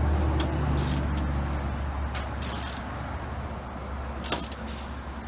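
Ratchet wrench tightening a squeeze nut on a bolt: short bursts of ratcheting about every second and a half, with a sharp click about four seconds in, over a steady low hum.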